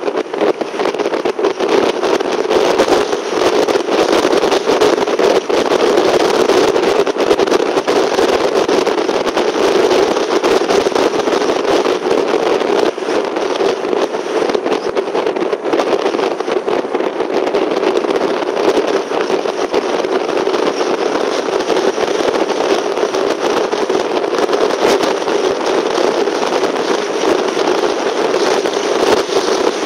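A car driving steadily at road speed: constant engine and tyre noise with a continuous crackle of wind buffeting the microphone.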